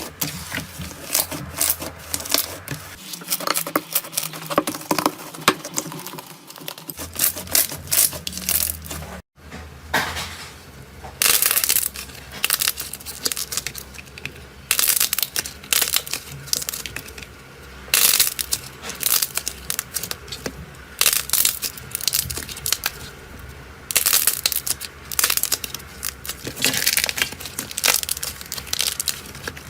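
Hands pressing, stretching and poking slime, giving a dense run of crackling pops and clicks. The sound cuts off briefly about nine seconds in and then resumes with sharper, louder crackles.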